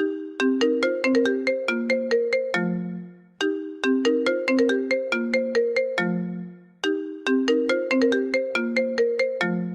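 iPhone ringtone ringing: a quick marimba-like tune of struck notes, each phrase ending on a longer low note. The phrase repeats three times with short pauses between.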